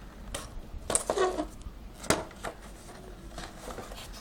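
Cardboard packaging of a boxed action figure being handled and turned: several sharp clicks and knocks with light rustling between them.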